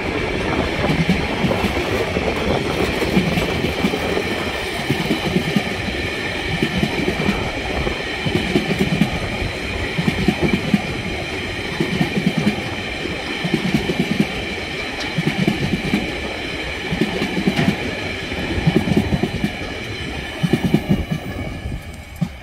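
Empty TasRail coal wagons rolling past slowly, at about 30 km/h, their steel wheels clacking over the rail joints in a group of clacks roughly every one and a half to two seconds as each wagon passes, over a steady rumble. A steady high-pitched ringing runs underneath.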